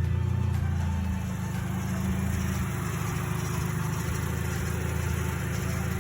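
Car engine idling steadily just after starting. The car has an idle problem: it runs unevenly at idle and tends to stall.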